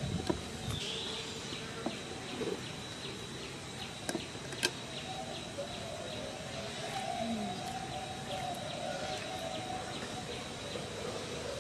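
Outdoor ambience: a steady high insect trill pulsing about three times a second. A couple of sharp clicks come about four seconds in, and a low drone rises in the second half.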